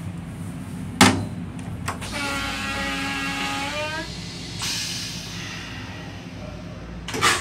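Metro-North M7 railcar toilet flushing: a sharp click about a second in, then a steady tone with overtones for about two seconds, then a hiss, over the low rumble of the train.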